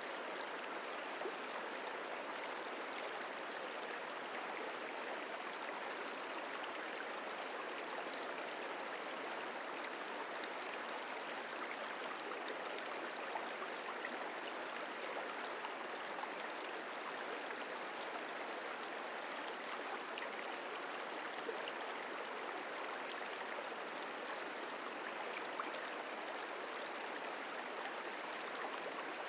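The Merced River flowing: a steady rush of running water.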